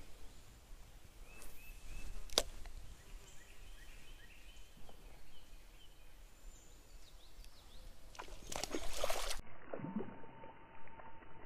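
Quiet outdoor background with faint high chirps and one sharp click about two seconds in, then a loud burst of rustling handling noise, with an arm and clothing brushing close to the microphone, around eight to nine seconds. The sound then cuts abruptly to a faint steady tone.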